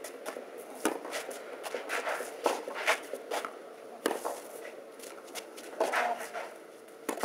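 Tennis rally on a clay court: sharp racket strikes on the ball at irregular intervals, with shoes scuffing on the clay between shots.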